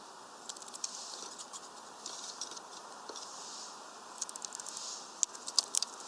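Small birds feeding at a peanut feeder: irregular sharp taps and cracks of beaks on nuts and seed husks, coming in a quicker, louder run near the end.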